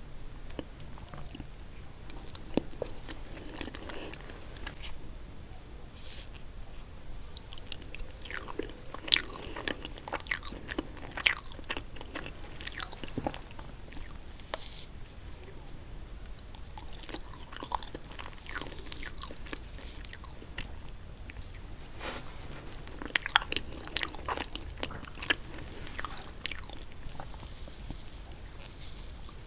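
Close-miked eating of chocolate cake: irregular bites and chewing with sharp wet mouth clicks and smacks, a few crisp crunches among them.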